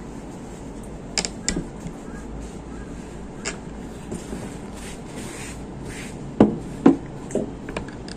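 Eating and food-handling noises: a few scattered small clicks, then three soft knocks, the loudest sounds, over a steady low background hum.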